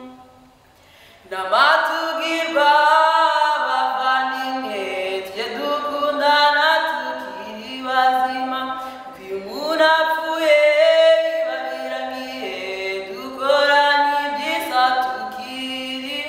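A woman singing unaccompanied, holding long notes that slide between pitches. She comes in a little over a second in, after a brief pause.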